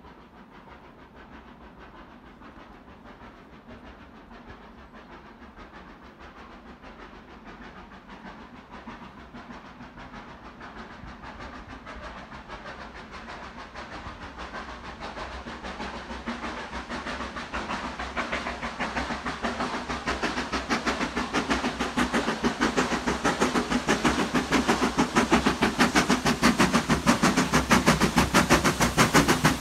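Steam locomotive working hard with a train, its rhythmic exhaust beats growing steadily louder as it approaches.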